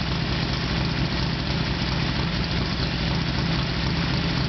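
Confederate Motors Hellcat motorcycle's V-twin engine idling steadily.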